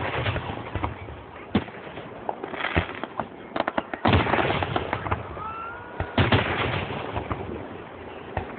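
Aerial fireworks finale: a rapid string of shells bursting with sharp bangs and stretches of dense crackling. About halfway through, a whistle rises and holds briefly.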